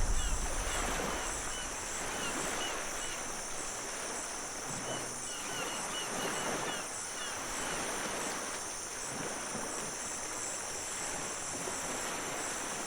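Outdoor nature ambience: a steady high insect drone with scattered short bird chirps over a soft rushing noise that swells and fades now and then.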